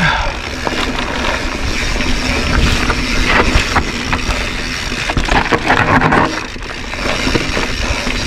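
Mountain bike riding down a dirt singletrack: tyres rolling and crunching over dirt and small rocks, with rattles and knocks from the bike. Under it runs a low rumble of wind on the microphone.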